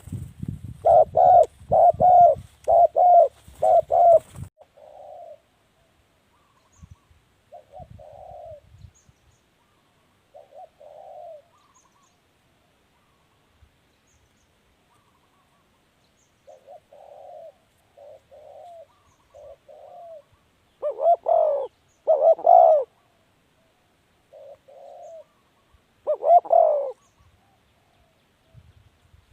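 Spotted dove cooing: repeated short, low coo notes in phrases, loud for the first few seconds, then fainter calls, and loud again twice near the end. A low rumble runs under the first few seconds.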